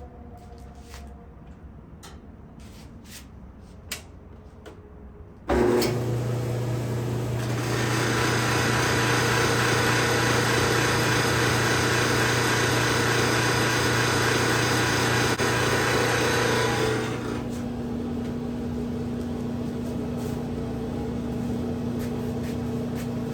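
GE clothes dryer starting suddenly about five seconds in and running with a loud, steady noise over a low motor hum. About seventeen seconds in the noise drops to a quieter steady hum. The owner suspects a motor bearing going bad, failing once the motor carries the drum's weight.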